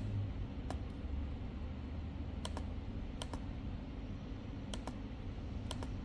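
Sharp clicks from a laptop being worked through a file-browsing dialog: a few single clicks, then four quick double clicks in the second half, over a low steady hum.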